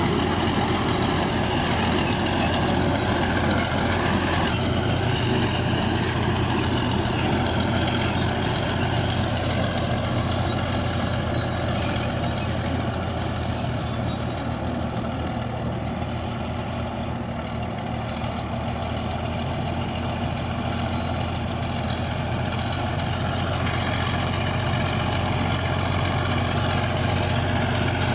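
Bulldozer's diesel engine running steadily under work, easing slightly about halfway through and then picking up again.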